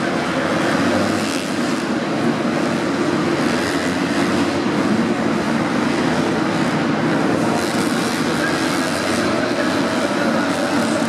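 A pack of motocross bikes racing around a dirt track, their engines revving together into a steady, unbroken wall of engine noise.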